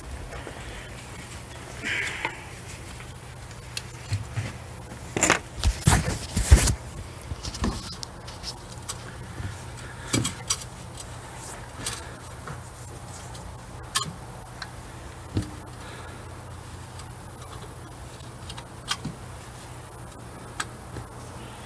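Scattered clicks, knocks and clinks from things being handled, loudest in a cluster about five to seven seconds in, over a steady low hum.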